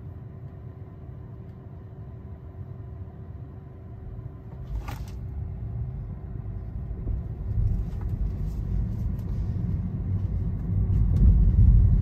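Low car-cabin rumble, quiet while the car waits at a light, with a brief sharp sound about five seconds in. The rumble then grows louder as the car pulls away and picks up speed, loudest near the end.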